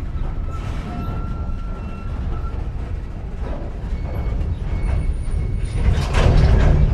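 Empty coal train of hopper cars rolling slowly, with a steady low rumble and thin metallic squeals from the wheels or brakes. About six seconds in, a louder burst of clanking and banging sets in: slack running through the couplers as the train stops and restarts.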